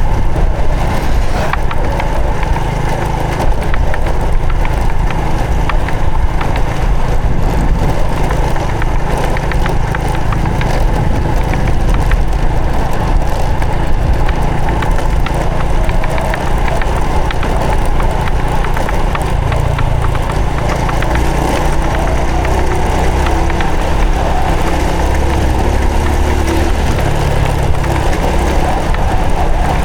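Honda Supra X 125 FI's single-cylinder four-stroke engine running steadily while riding, with heavy wind rumble on the microphone.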